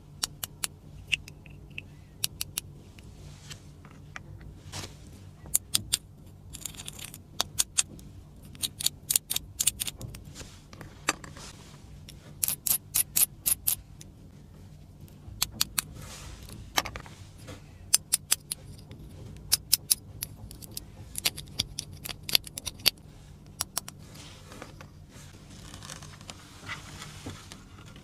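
Small plastic toy furniture pieces being handled, with sharp clicks and taps, some single and some in quick clusters, over a faint steady hum.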